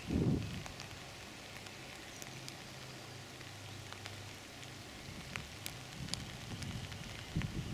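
Outdoor ambience: scattered light ticks and pattering, with a short low rumble of wind on the microphone right at the start and more wind rumble building near the end.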